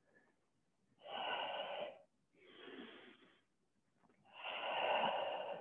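A woman breathing audibly, three long breaths of about a second each, paced with repeated yoga leg lifts.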